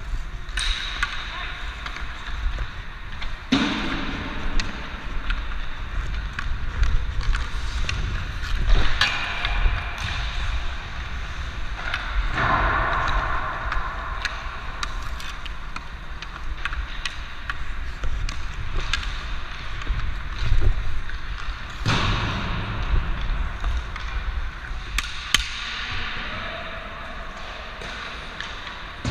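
Hockey skate blades scraping and carving on the ice in repeated strides and stops, with sharp clicks of a hockey stick handling a puck. A steady low rumble runs under it all.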